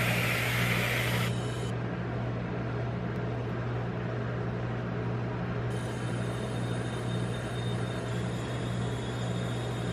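Whipped-cream aerosol can hissing for about a second at the start, over the steady low hum of the rolled-ice-cream machine's freezer-plate compressor.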